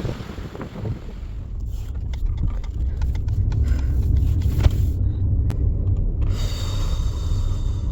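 A steady low rumble inside a car, growing louder over the first few seconds, with several sharp clicks and knocks along the way and a brief hiss near the end.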